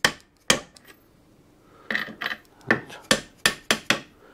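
Sharp hammer knocks on a Simson S51 engine part being driven out of the gearbox so that it does not wedge. Two knocks about half a second apart, a pause, then about seven more coming faster in the second half.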